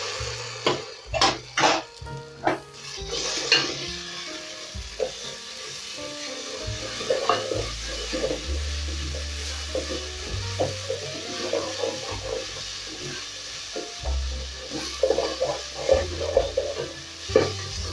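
Wooden spoon stirring and scraping onions, ginger and tomato paste frying in oil in a metal pot, with a steady sizzle and repeated knocks of the spoon against the pot. Soft background music runs underneath.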